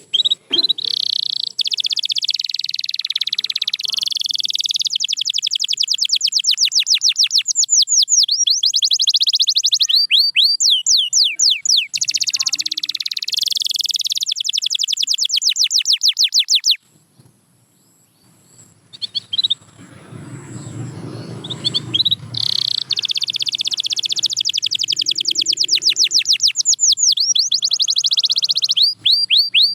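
Canary singing a long song of fast, rolling trills. The song breaks off for a couple of seconds past the middle, when a low rumbling noise is heard, then resumes.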